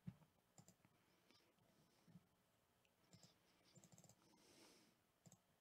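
Faint, scattered computer mouse clicks over near silence, a few single clicks and a quick cluster a little before the middle.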